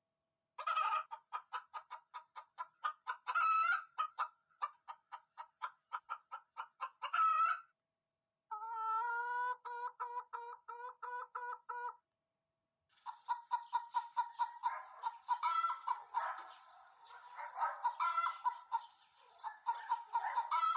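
Hen clucking: a quick run of short clucks, then a steadier pulsing call for a few seconds, then denser, overlapping clucking.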